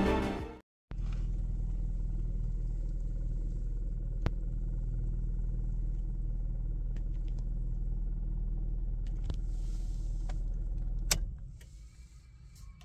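Cabin sound of a 2010 Toyota Belta 1300cc stationary with the engine idling, a steady low hum with a faint thin whine and a few light clicks. Near the end a sharp click comes and the engine sound dies away, as when the ignition is switched off.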